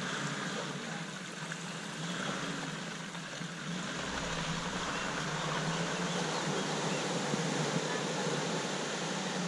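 Land Rover Defender Td5 five-cylinder diesel heard faintly from a distance as it drives away through mud, a low steady hum under a steady rushing noise that grows a little louder about four seconds in.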